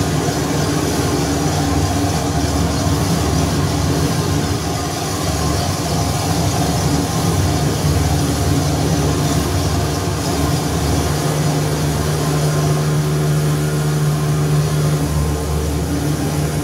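Modular synthesizer drone: a dense low drone mixed with noise across the whole range, made from feedback and manipulated sound recordings. A steady low tone swells in about two-thirds of the way through.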